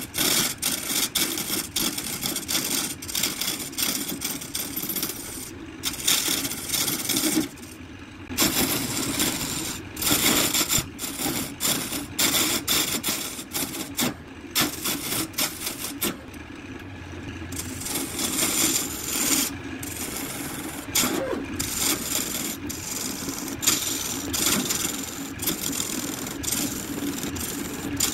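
Wood lathe spinning a blank of colored pencils set in epoxy while a turning tool cuts into it: a steady motor hum under a continuous scraping hiss with many sharp ticks of chips and shavings. The cutting lets up briefly twice, leaving mostly the hum.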